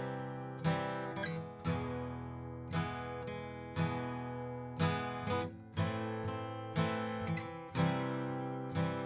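Acoustic guitar, a 1965 Epiphone Texan dreadnought, strummed in an even rhythm. There is a full chord about once a second with lighter strokes between, each chord left to ring.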